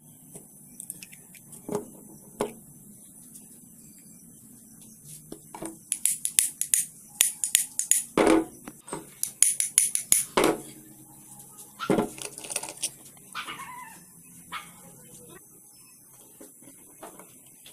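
Metal parts of an air compressor pump clicking and knocking as the crankshaft is fitted into the crankcase housing by hand. Runs of quick light clicks come in the middle, with a few louder knocks.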